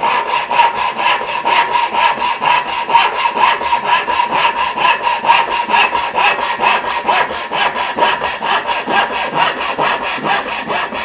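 Disston backsaw, freshly hand-filed, sawing steadily into a wooden board: a quick, even run of rasping back-and-forth strokes, about four to five a second. The cut runs smoothly and cleanly.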